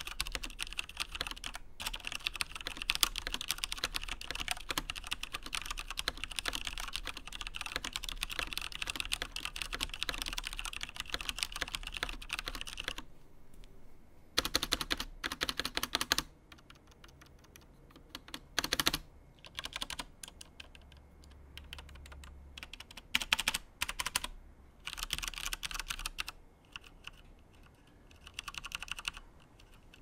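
Typing on a Cooler Master Masterkeys Pro L mechanical keyboard with Cherry MX Speed Silver linear switches. A fast, continuous run of keystrokes lasts for about the first thirteen seconds, then comes short bursts of typing separated by pauses.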